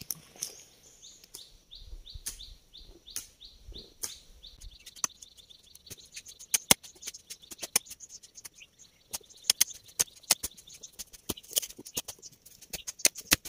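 A bird calling in a quick series of short, high chirps that come faster after a few seconds and stop about five seconds in, followed by irregular sharp clicks and ticks.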